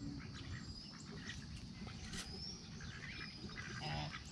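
Backyard poultry flock: faint chirps and small calls, with one short bird call near the end, over a low rumble.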